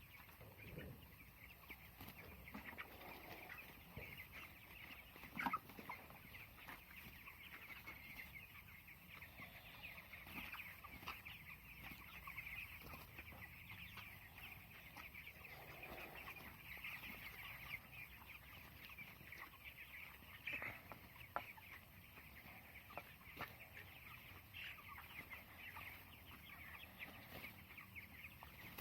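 A shed full of three-week-old broiler chickens peeping and chirping continuously, a faint, dense chorus of many birds, with a couple of short louder knocks.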